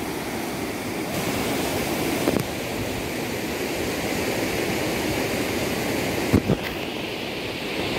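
Fast, swollen river rushing over rocks in a steady roar of water, with a couple of brief knocks, one about two seconds in and one near the end.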